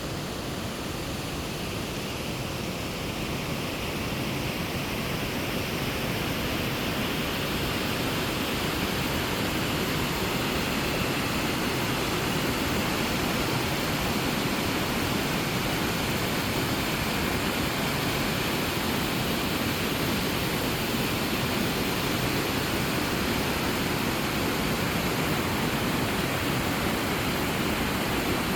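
Rushing water of a mountain stream, a steady even rush that grows a little louder over the first few seconds and then holds.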